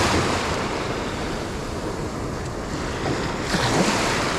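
Surf washing in on a shallow sandy shore, with wind buffeting the microphone. A wave surges in at the start and another about three and a half seconds in.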